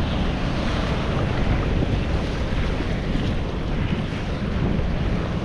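Strong wind buffeting the microphone over rough, choppy sea: a steady rushing noise with a heavy low rumble.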